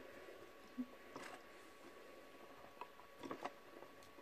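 Near-quiet room tone with a few faint clicks from the plastic Body Chan posable figure and its clear plastic stand being handled, with a small cluster of them near the end.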